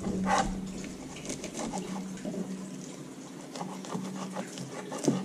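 Fillet knife slicing a crappie fillet away from its skin on a plastic cutting board: soft, repeated scraping and rubbing strokes.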